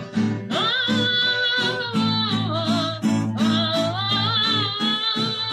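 Acoustic guitar strumming a steady rhythm under a voice singing long held, wavering notes.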